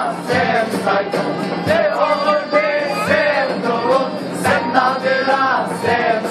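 Men singing a Black Sea folk song together, accompanied by a Black Sea kemençe, a tulum bagpipe with its steady drone, and an acoustic guitar.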